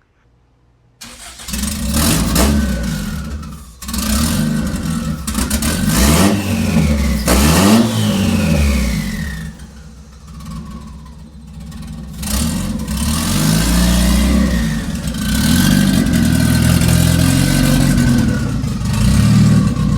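A car engine revving repeatedly, its pitch climbing and falling with each blip, with a higher whine gliding down as the revs drop. It starts about a second in, eases off briefly in the middle, then runs loud again.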